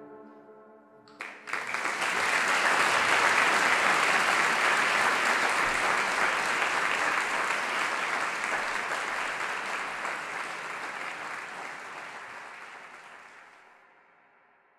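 A held musical note dies away, then about a second in an audience breaks into applause. The applause runs steadily and fades out near the end.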